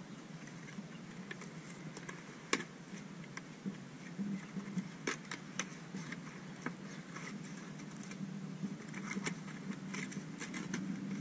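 Paper and plastic packaging being handled and pulled apart by hand, with scattered sharp crackles and rustles.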